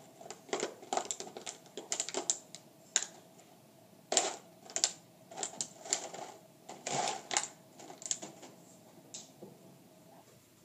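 A puppy pawing and mouthing an empty plastic water bottle on a tile floor: irregular clusters of crinkling, clicking and knocking plastic that stop near the end. A faint steady hum runs underneath.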